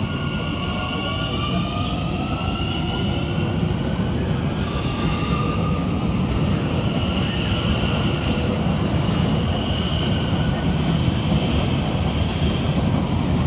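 Z 50000 Francilien electric multiple unit pulling away, with a steady rumble of wheels on rail. Its traction motors give a high whine that climbs in pitch as the train gathers speed, then holds level. A few light clicks come from the running gear.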